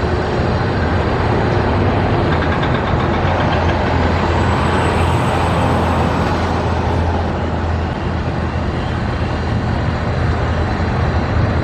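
Steady road traffic noise, vehicles running past, with one pass swelling louder in the middle and fading again.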